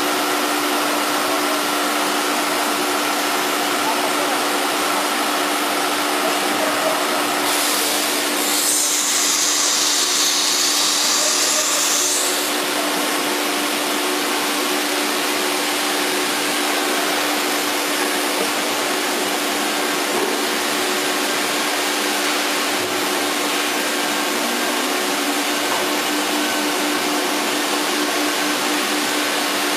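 CNC router with an automatic tool changer running: a steady machine drone with a constant hum throughout. A loud hiss of air starts about seven seconds in and lasts about five seconds, typical of the spindle blowing air as a tool is released and changed.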